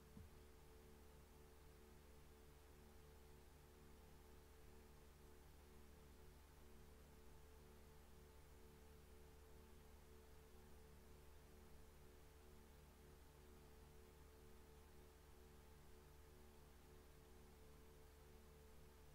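Near silence: a faint, steady hum of a few held low tones over a quiet noise floor.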